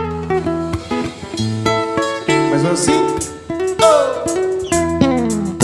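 Instrumental intro of a live band playing Brazilian pop: plucked guitar notes and chords over bass, with a few sliding notes a few seconds in.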